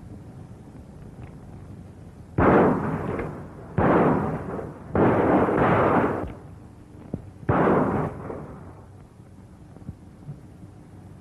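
Revolver shots: several loud gunshots fired a second or so apart, each trailing off in a short echo, the shooting aimed at a tin can lying in the dirt.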